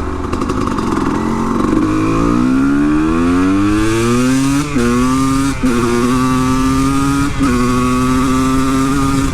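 Honda CR250 two-stroke single-cylinder motorcycle engine pulling hard under acceleration. Its pitch climbs for about three seconds, then holds high, with three short breaks where it shifts up.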